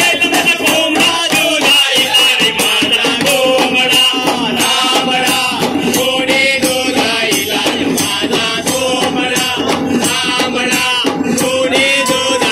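Live East Indian folk music: men singing together over a steady beat of ghumat pot drums and shakers.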